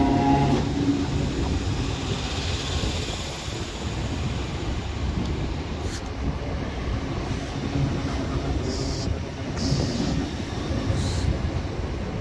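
Electric multiple-unit train, a Greater Anglia Class 720, alongside the platform, giving a steady rumble with hiss. A few short higher hisses come near the end.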